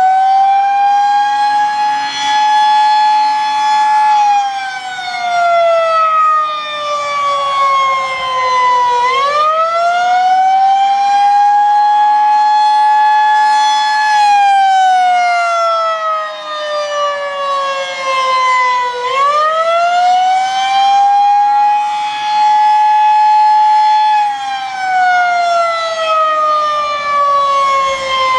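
Federal Signal 2001-SRNB rotating outdoor warning siren sounding the attack signal: a very high-pitched wail that climbs quickly, holds for about four seconds, then slides down for about five before climbing again, about every ten seconds. It is very loud, swelling and dipping as the rotating horn sweeps round.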